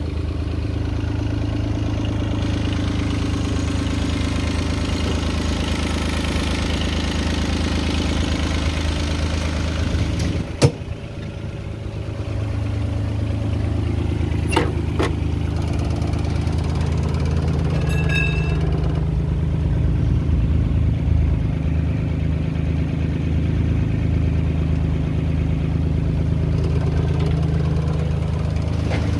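Takeuchi TB216 mini excavator's diesel engine running steadily. A single sharp knock about ten seconds in is the loudest moment, followed by two fainter clicks a few seconds later.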